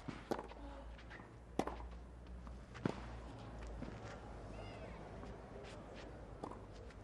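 Tennis rally on a clay court: racquet strikes on the ball in turn, a sharp pop about every 1.3 seconds for the first three seconds, then fainter hits, over a hushed stadium crowd.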